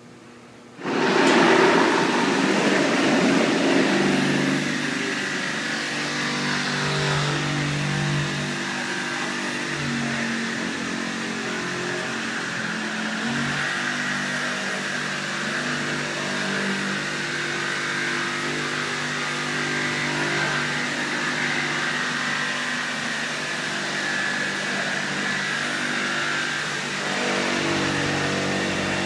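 Large industrial thermoforming machine starting up about a second in and then running steadily: a hissing mechanical drone with motor tones that shift in pitch in steps.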